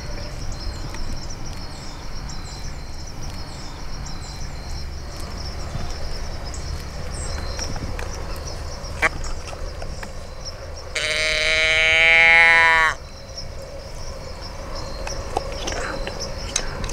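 A single long doe bleat from a deer call, lasting about two seconds, blown to stop a walking whitetail buck.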